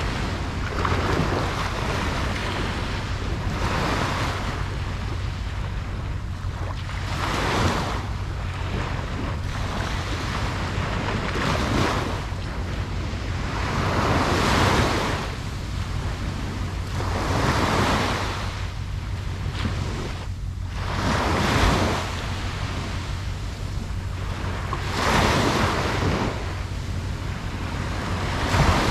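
Ocean waves breaking and washing on a beach, swelling every two to four seconds over a steady low rumble of surf and wind on the microphone.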